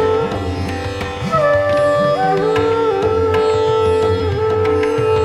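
Background instrumental music: a melody of held notes that slide from pitch to pitch over a steady low drone.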